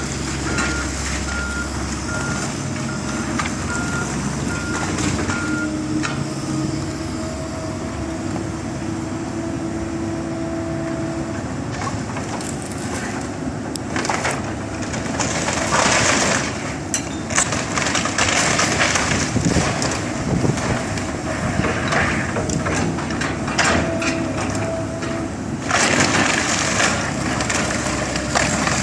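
Hydraulic excavator running as it demolishes a wood-frame building. A reversing alarm beeps steadily for the first several seconds. From about halfway, wood and sheet metal crash and crunch as the bucket pulls the structure down.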